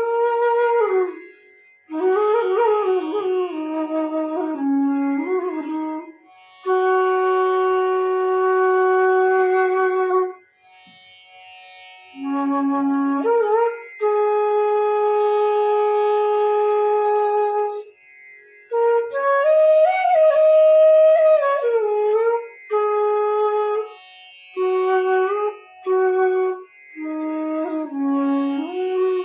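F-sharp bass bamboo flute playing a slow melody over a tanpura drone tuned to F sharp, in phrases with long held notes and slides between pitches. It is a tone and tuning check, every note sounding in tune with the drone.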